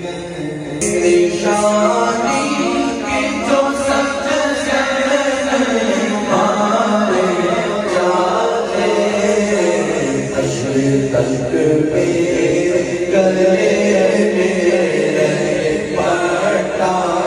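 Male voices singing an unaccompanied Islamic devotional hymn together in a chanting style, swelling louder about a second in.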